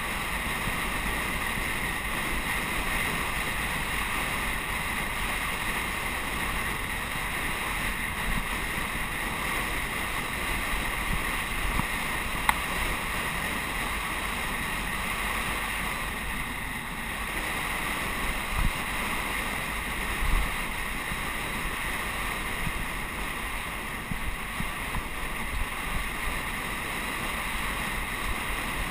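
Steady wind rush over the microphone of a camera on a road bicycle coasting downhill at speed, with a low rumble of tyres on asphalt and a few brief knocks from bumps in the road.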